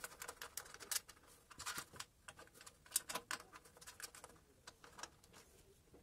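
Faint, irregular light clicks and taps of hands working inside a metal PC case, unscrewing a motherboard standoff to move it to another hole.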